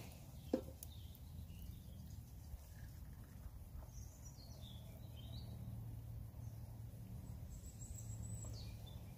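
Quiet woodland at dusk: a few faint, high bird chirps about four seconds in and again near the end, over a low steady background rumble, with a single sharp click about half a second in.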